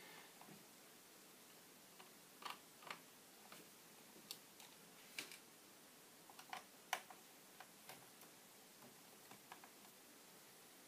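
Faint, irregular small clicks and taps of a Phillips screwdriver taking out the screws of a laptop screen bezel, about a dozen in all.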